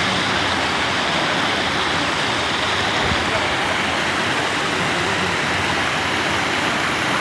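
Floodwater rushing in a steady, loud wash.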